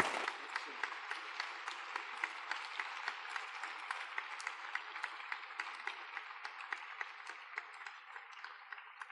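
Audience applauding, a steady mass of hand claps that eases off near the end.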